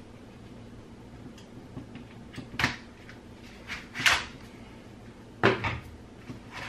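Hard plastic clicks and knocks as the batteries are unlatched and pulled out of the back of a DJI Inspire 2 drone: a handful of short, sharp knocks a second or so apart, with fainter ticks between them.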